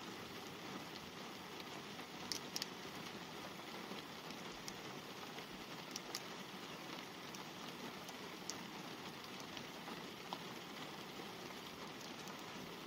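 Light rain falling on a car's glass and body, heard from inside the car: a faint steady hiss with scattered sharp ticks of single drops striking.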